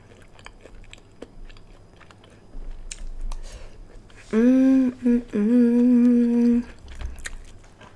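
Soft chewing with faint mouth clicks, then about four seconds in a woman hums a steady two-part "mm-mmm" for about two seconds.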